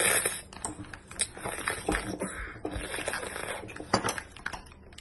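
A child slurping sticky natto off metal chopsticks, with a loud slurp at the start, then irregular wet slurping and chewing sounds broken by light clicks, one sharper click about four seconds in.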